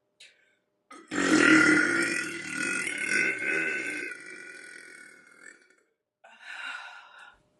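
A woman's long burp, about four seconds, loudest at the start and trailing off, followed by a shorter, breathier sound near the end.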